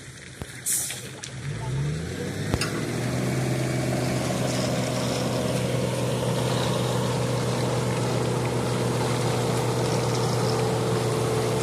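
An engine revs up about two seconds in, its pitch rising, then runs at a steady speed with a constant hum. A short hiss comes just before it.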